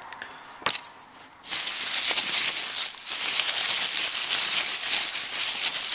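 Packaging being handled and crinkled while it is opened, a dense rustle of many small crackles that starts about a second and a half in, after a single click.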